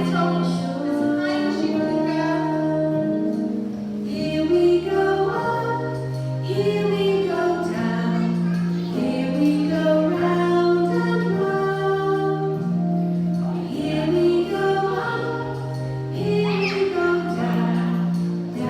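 Music: a woman singing a children's song over an instrumental backing with held bass notes.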